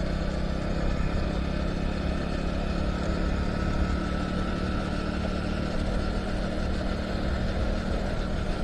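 Motorcycle engine running steadily at cruising speed on an unpaved gravel road, under a constant rush of wind and tyre noise.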